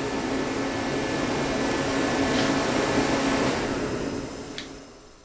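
Garage heater running: a steady noise with a low hum, fading out near the end, with a single light click as it dies away.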